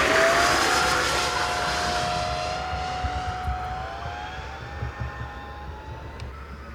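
Giant-scale RC model airliner flying past, its engines giving a steady whine that rises a little in pitch and fades as the plane moves away.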